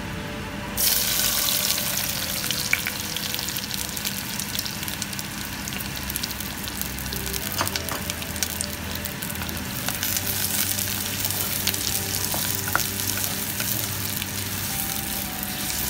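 Chopped small onions dropped into hot oil in a clay pot, the oil bursting into a loud sizzle about a second in and frying on with scattered sharp crackles. A wooden spoon stirs the onions through the oil.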